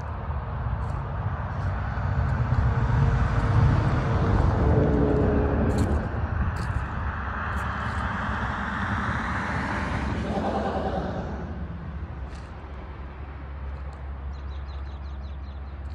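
A vehicle driving past, its engine and tyre noise swelling over the first few seconds and fading away about eleven seconds in, over a steady low rumble.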